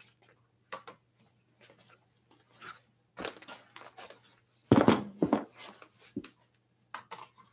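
An e-bike fender being handled and fitted over the front wheel: scattered knocks, scrapes and rustles as it is moved against the bike, with the loudest knocks and a thump about five seconds in.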